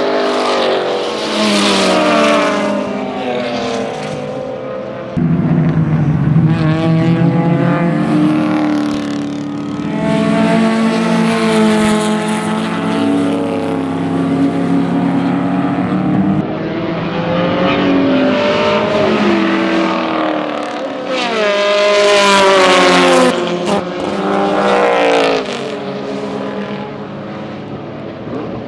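Several race car engines in a pack passing at speed, their pitch repeatedly rising under acceleration and dropping with gear changes and braking, overlapping one another.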